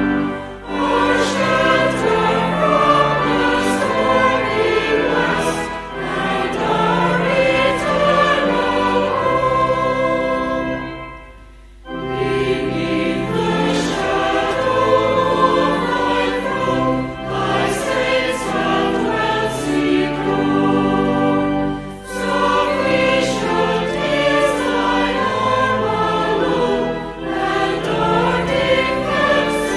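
Choir singing, with long held notes and a short break between phrases about twelve seconds in.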